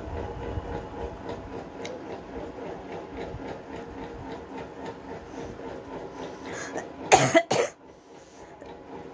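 A woman coughing, a loud harsh double cough about seven seconds in, after several seconds of low background hum.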